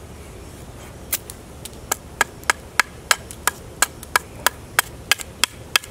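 Forged chopping knife striking a wooden bow stave in quick, light chops, about three a second, beginning about a second in, roughing out the bow's handle.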